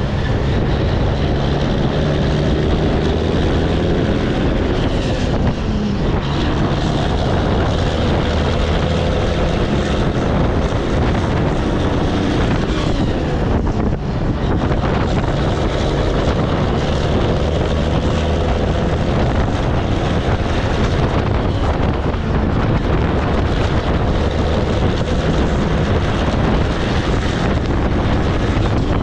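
Cabover Peterbilt's diesel engine pulling the loaded trailer away from a stop and up to highway speed, with a couple of brief dips in the engine sound. Heavy wind rush on the microphone and tyre roar run under it.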